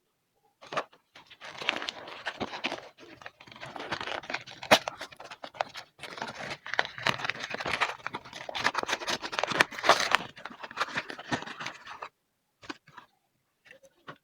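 Packaging being torn open and crinkled by hand, a dense run of crackles and sharp snaps that stops suddenly near the end, followed by a few separate small clicks.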